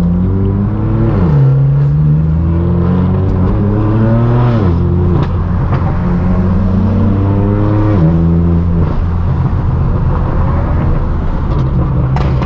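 A car engine accelerating hard through the gears: its pitch climbs steadily and then drops sharply at each of three upshifts, about a second in, near the middle and two thirds of the way through, then holds steady.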